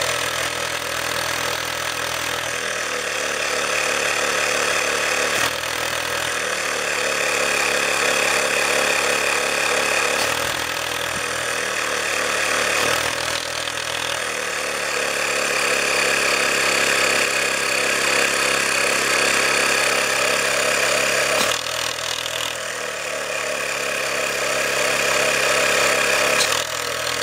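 Small 12 V DC portable tyre compressor running steadily, its motor note shifting in steps several times as the hose end is closed with a finger and pressure builds against it.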